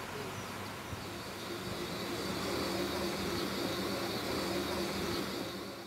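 GWR-built narrow-gauge steam tank locomotive No. 8 Llywelyn standing with steam up: a steady hiss with a low hum, getting louder about two seconds in and fading out at the end.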